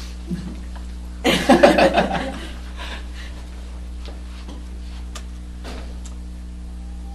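A man laughing briefly, a burst of chuckles starting about a second in and lasting about a second, over a steady low electrical hum. A few faint clicks follow.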